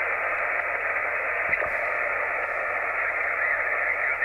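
Amateur radio transceiver's receiver hiss: steady band noise from an HF band with no station talking, heard through the radio's speaker, the receiver being a remote station reached over the internet. A soft thump about a second and a half in.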